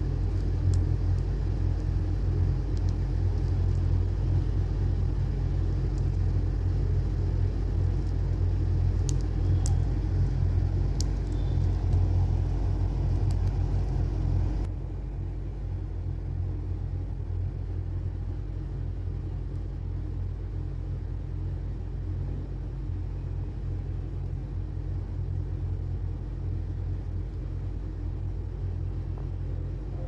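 Steady low background rumble that drops a little in level about halfway through, with a few faint clicks a little after the first third.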